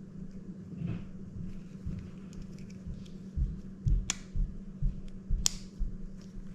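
Handling of a Shimano Calcutta Conquest BFS baitcasting reel: soft knocks and rubbing, with two sharp clicks about four and five and a half seconds in as a part is pushed back into place.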